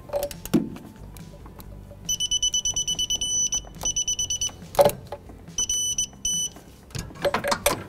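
Digital torque wrench tightening a pulley bolt: fast runs of high electronic beeps that go briefly into a steady tone as the set torque is reached, heard twice. There are tool clicks and knocks around them.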